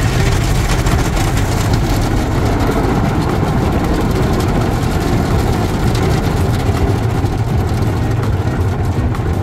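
Automatic tunnel car wash heard from inside the car: a loud, steady rumble and wash of brushes, water spray and machinery with no breaks.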